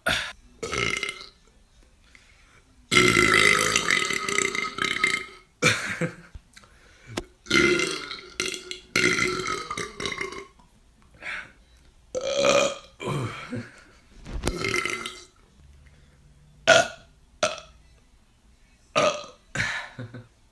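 Men belching, one burp after another. A long, drawn-out belch starts about three seconds in, several medium-length burps follow, and the last few seconds hold short, quick ones.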